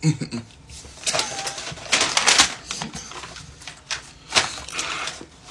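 Crinkling and rustling of a paper bag being handled, with sharp clicks and a few short vocal sounds.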